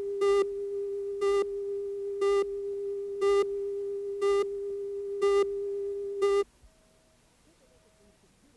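A steady electronic tone with a short buzzy beep about once a second, seven beeps in all; tone and beeps cut off abruptly about six and a half seconds in.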